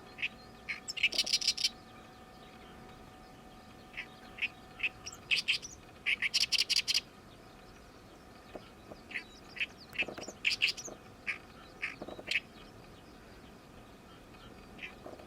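Oriental reed warbler singing its harsh, grating 'gyo-gyo-shi' song: fast chattering bursts every few seconds, with single clipped notes in between.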